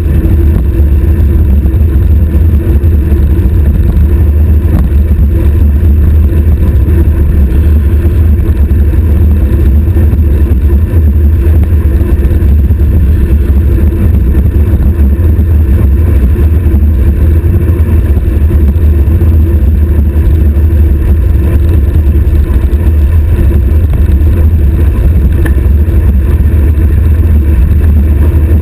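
Wind buffeting a stem-mounted GoPro on a road bike descending at high speed: a loud, steady low rumble.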